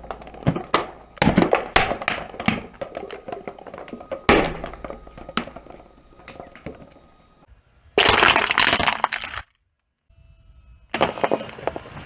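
Brittle objects cracking and snapping as a car tyre crushes them: a dense run of sharp cracks over the first several seconds, then two short, loud bursts of crushing noise, one about eight seconds in and one near the end.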